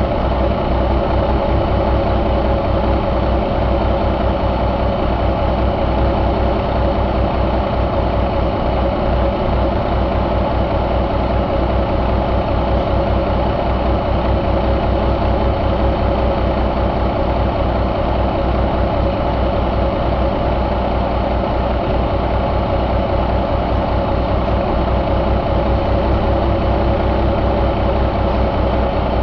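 2008 Cummins ISX inline-six diesel engine idling steadily.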